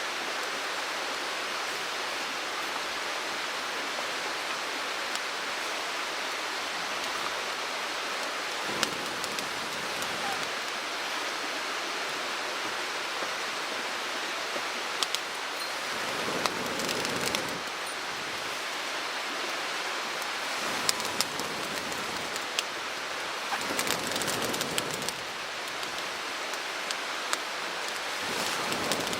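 Steady rush of a mountain stream, with a few sharp clicks and two short louder stretches of noise over it, about halfway through and again near the end.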